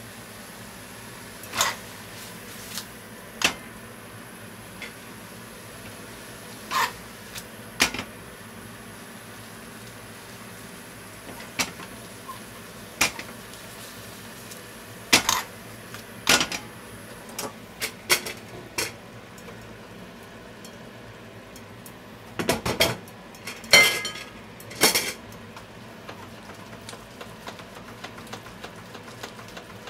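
Spaghetti and clams simmering in broth in a metal frying pan, a steady faint bubbling, with kitchen tongs clacking against the pan as the pasta is stirred. The knocks come now and then, with a quick run of louder ones late on.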